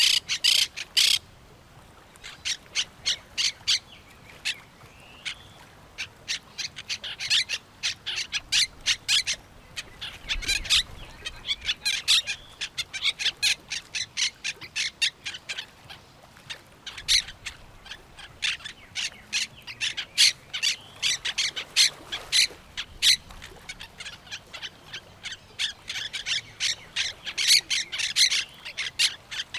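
Parrots squawking in rapid runs of short, sharp calls, several a second, broken by brief pauses.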